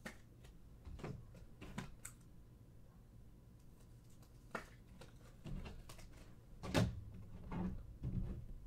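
Faint handling noises from trading cards and packs on a table: scattered light clicks and taps, the loudest about seven seconds in.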